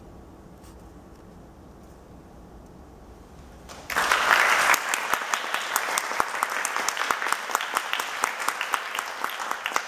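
A hush of about four seconds, then audience applause breaks out suddenly, loudest in its first second, and carries on steadily.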